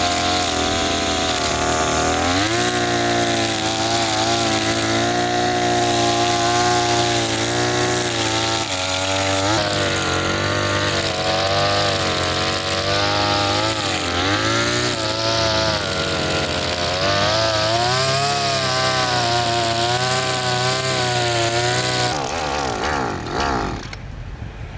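Echo 260 two-stroke brush-cutter engine running at high revs through a homemade exhaust made from a pressure-washer accumulator bulb. Its pitch wavers, with several brief dips as the throttle is eased and reopened. Near the end the revs fall away and the sound dies down.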